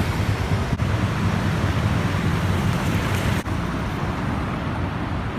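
City street traffic noise: a steady rumble of road vehicles, broken by two brief dropouts, about a second in and just after three seconds.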